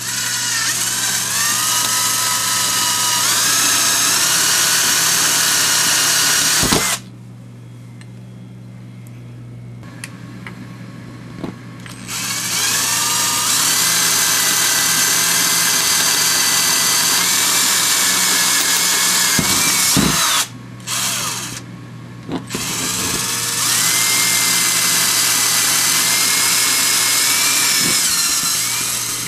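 Electric drill running in three long bursts with short pauses between, its motor whine stepping up in pitch as it speeds up. A larger bit is enlarging a small pilot hole through the refrigerator's wall.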